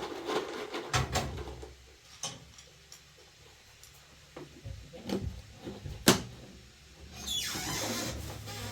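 Scattered knocks and clicks of things being handled, the sharpest about six seconds in, then a rustling hiss for the last second and a half.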